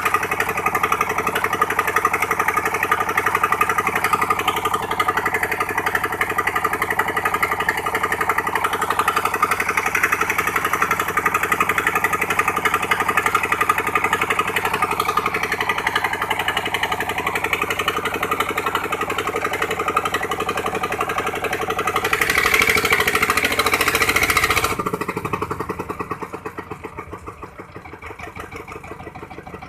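Engine of a sand suction pump running steadily with a fast pulsing beat. About three quarters of the way through it grows louder for a few seconds, then drops back to quieter, lower running.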